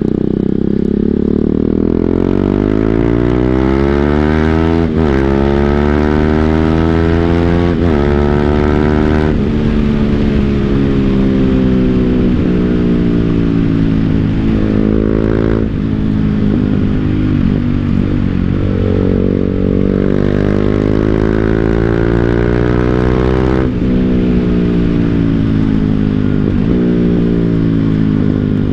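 BMW G 310 GS single-cylinder engine through an Akrapovic full-system exhaust, accelerating up through the gears with quick drops in pitch at each upshift. Midway it falls off as the throttle is closed, then pulls up through another shift.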